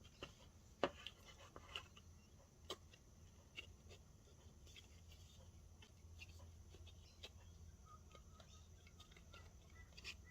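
Faint, scattered light clicks and taps as box-insert pieces are handled and fitted into place, over near-silent room tone.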